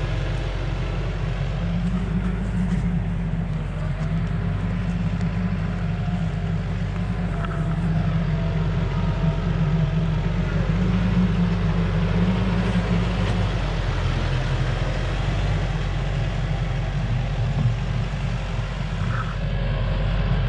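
A heavy vehicle engine running steadily, its low drone louder and slightly higher from about two seconds in until about thirteen seconds in.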